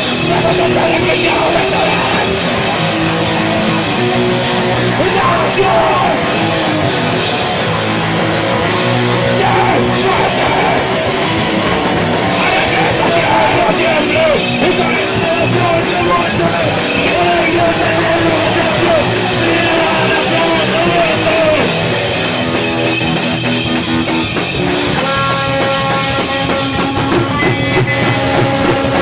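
Live heavy rock band playing loudly, with distorted electric guitar.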